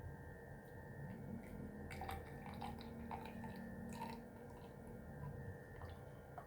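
Faint dripping of liquid with a few small clicks, bunched about two to four seconds in.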